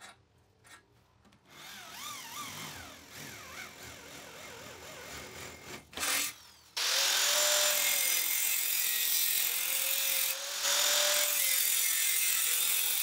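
Handheld electric drill boring into a square steel tube, its whine wavering in pitch. About seven seconds in, an angle grinder starts cutting through the steel tube, much louder and steady with a high hiss.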